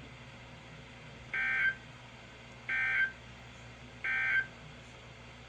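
Emergency Alert System end-of-message code from NOAA Weather Radio: three short, identical bursts of two-tone digital data screech, about 1.4 s apart, signalling the end of the warning broadcast.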